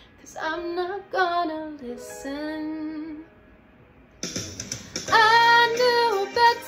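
A woman singing a pop ballad, long held vowels bending in pitch; after a short pause, about four seconds in, a louder and fuller layered vocal accompaniment comes in under her voice.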